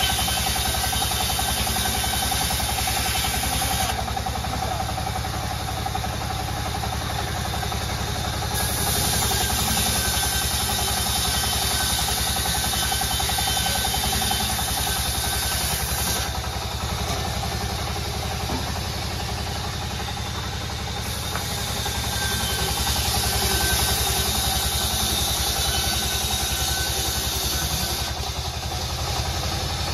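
Belt-driven vertical band saw running steadily while sawing a plank off a large timber slab. The motor and belt make a constant hum, with a steady higher tone from the blade in the wood.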